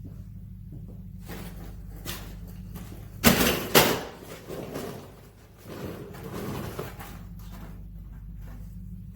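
Two sharp knocks about half a second apart, followed by a few seconds of quieter handling and rustling, over a steady low hum.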